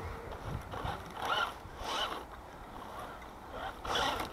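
Brushed electric motor and gears of a 1/10 four-wheel-drive RC truck whirring in three short bursts as it is driven in throttle blips over rough grass.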